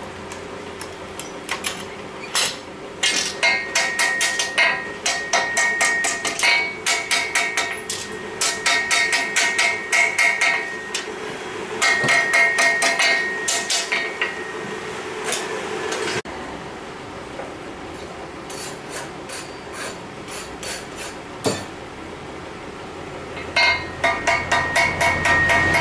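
Hand hammer striking a red-hot steel katana blade on an anvil in quick runs of blows, about four or five a second, with pauses between runs. Each blow rings with a clear high metallic tone.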